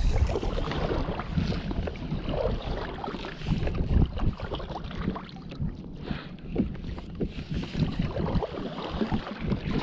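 Water splashing and lapping against a kayak's hull as it is paddled, in many small irregular splashes, with wind rumbling on the microphone.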